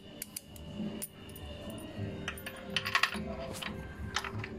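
Light metallic clinks and clicks of a chrome steel bolt and washer being handled and threaded in by hand, with a quick cluster of ringing taps about three seconds in.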